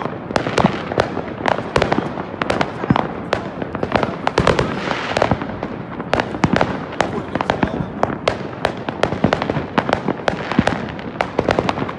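Many fireworks going off at once: a dense, unbroken run of bangs and crackles, several a second, from aerial shells and rockets bursting in the sky.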